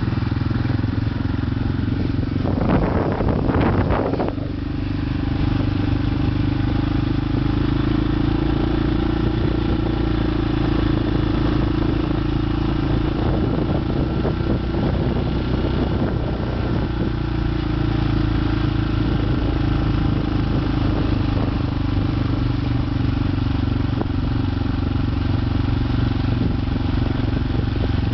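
Motorcycle engine running steadily while riding along at an even road speed. A brief rush of noise comes through about three seconds in.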